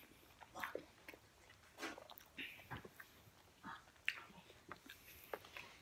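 Faint chewing and wet mouth sounds of people eating, a scatter of small irregular smacks and clicks.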